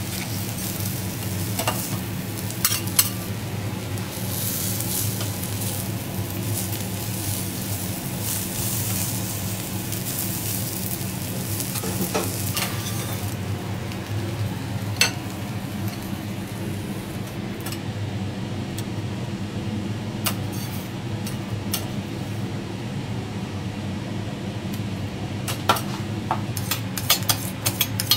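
Shrimp sizzling on a steel teppanyaki griddle, with scattered clicks and scrapes of metal spatulas on the plate over a steady low hum. Near the end a metal spoon clicks rapidly against a small steel saucepan as sauce is stirred in it on the griddle.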